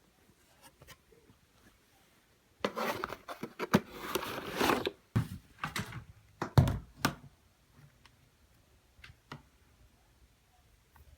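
Hands handling and fitting a hair dryer wall holder: about two seconds of rustling and scraping, then several clicks and knocks, the loudest a dull knock about six and a half seconds in.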